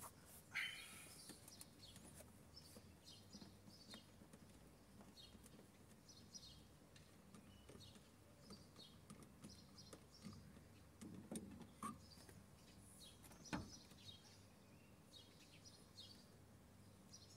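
Near silence with faint bird chirps in the background and a few soft clicks and knocks as an automatic gear shift knob is worked off its lever; one sharper click about 13 seconds in.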